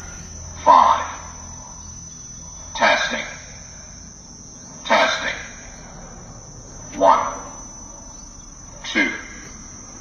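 Telegrafia Gibon 1200 electronic tsunami warning siren sounding short falling tones, each about half a second long, five times at about two-second intervals. Crickets trill steadily underneath.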